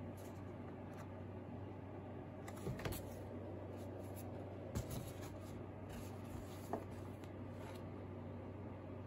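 Sheets of drawing paper being handled: a few brief, soft rustles and light taps as pages are picked up and set down on a wooden desk, over a steady low hum.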